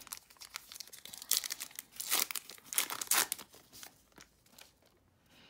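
A foil-wrapped Topps trading-card pack torn open by hand, its wrapper tearing and crinkling. The crackling is loudest from about one to three and a half seconds in, then dies down.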